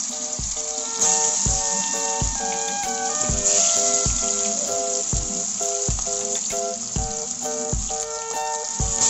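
Seer fish steaks coated in a turmeric and pepper marinade shallow-frying in hot coconut oil in a pan, a steady sizzle that flares up about a second in and again a few seconds later as more pieces go into the oil. Background music with a steady beat plays over it.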